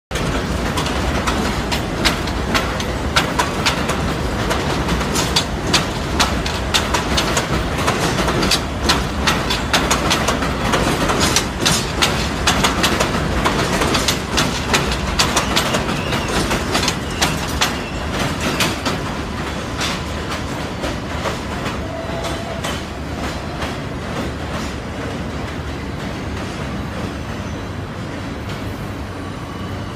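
Bombardier R62A subway train rolling past on an elevated steel structure, its wheels clattering over the rail joints with rapid sharp clicks. Past the middle the clatter thins out and the sound eases down as the train moves away.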